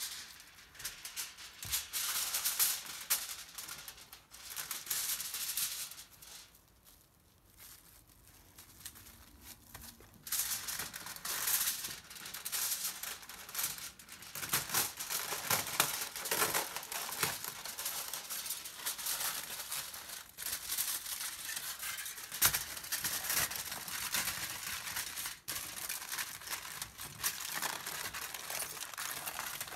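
Aluminium foil crinkling and rustling as a sheet is pulled off the roll, torn on the box's cutting edge and crumpled around a wrapped burger, with a quieter stretch a few seconds in.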